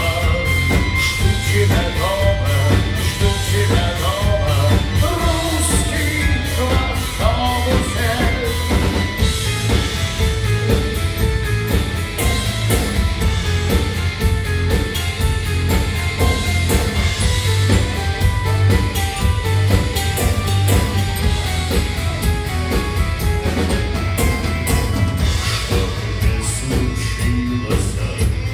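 Live rock band playing: drum kit keeping a steady beat under electric guitar and bass guitar, with a metallophone struck with mallets. A voice sings over it, mostly in the first third.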